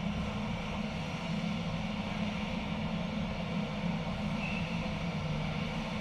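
Haas VF4 CNC vertical mill running, a steady drone with a low hum and no breaks.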